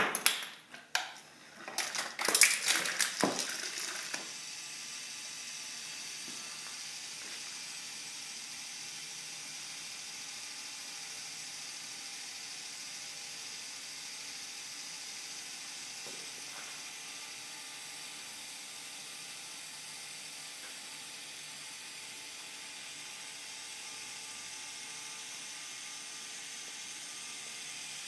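A quarter drops into a tube and rattles down it with a few sharp clicks and knocks. About four seconds in, a small electric fan switches on as the coin closes its circuit, and it runs with a steady hiss.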